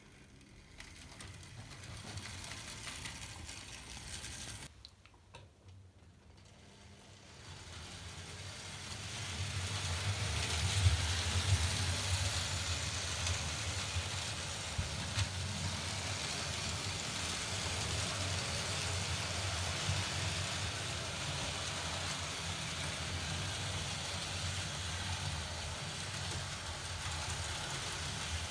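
Vintage Märklin H0 BR 23 model steam locomotive (3005, from 1956) running on Märklin metal track with a train of coaches: a steady electric motor hum with wheel and rail rattle and a few sharp clicks. It is softer at first, dips briefly about five seconds in, then grows louder and settles into a steady run from about nine seconds.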